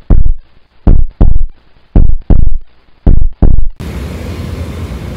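An intro effect of deep, loud double thumps in a heartbeat rhythm: four beats about a second apart, each a pair of hits. It cuts off after about four seconds and gives way to a steady hum of street traffic noise.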